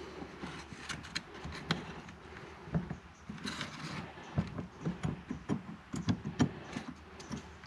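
Light clicks and taps of steering-column parts being handled and slid out by hand, with a brief scrape a little past three seconds; the taps come more often in the second half.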